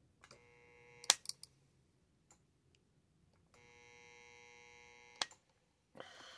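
Resistance soldering unit buzzing while energized, twice: a buzz of about a second, then a longer one of nearly two seconds, each ending in a sharp click as it cuts off. A brief rustle near the end.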